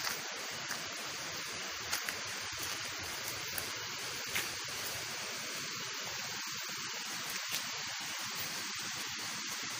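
Steady hiss of water running along a spring-fed channel, with a few faint clicks.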